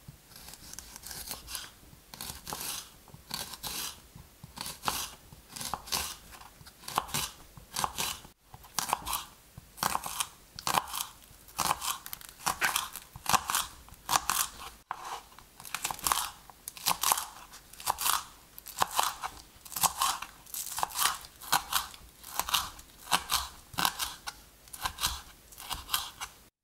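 Kitchen knife slicing spring onions on a wooden cutting board: a crisp crunch as the blade cuts through the stalks, then a knock on the board, repeated about two times a second.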